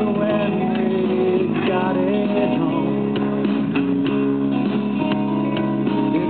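Music: a song with strummed guitar and a singing voice.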